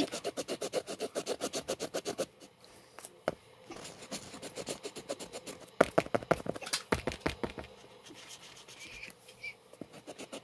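A marker scribbling back and forth on a textured canvas board, colouring in. It goes in runs of quick scratchy strokes, about five a second, with short pauses between the runs.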